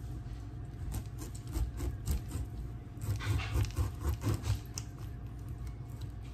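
Knife cutting a pineapple on a cutting board: scattered scrapes and soft knocks, a little busier about three seconds in, over a low steady rumble.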